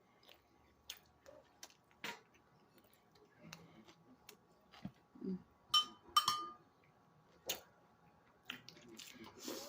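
Quiet eating sounds: scattered soft clicks and smacks of chewing and handling food, with two ringing clinks, like a utensil against a plate, about six seconds in.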